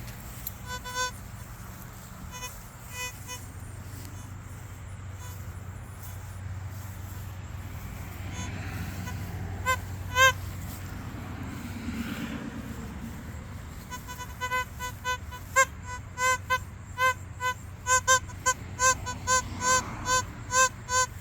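Metal detector sounding short beeps, all at the same mid pitch, as the coil sweeps over buried targets in the lawn: a few scattered beeps early on and about halfway, then a quick run of about two a second through the last several seconds. A steady low rumble sits underneath and swells in the middle.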